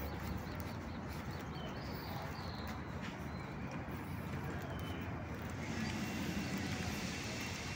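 Steady outdoor background noise with footsteps on a paved walkway; the hiss grows brighter about five and a half seconds in.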